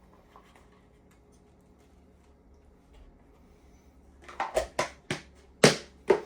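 Kitchen items being handled: a few quiet seconds, then a quick run of sharp clicks and knocks starting about four seconds in, the loudest near the end.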